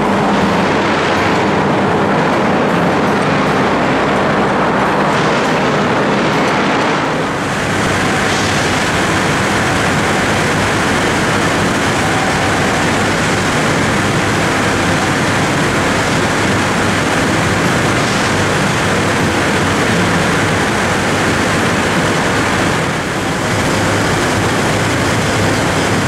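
Loud, steady industrial din of a steel melt shop around an electric arc furnace: a dense, even roar with a low hum under it.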